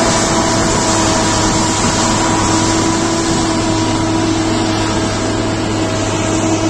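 A heavy engine running steadily at an even speed: a constant hum of a few held tones over a loud rushing noise, with no change through the stretch.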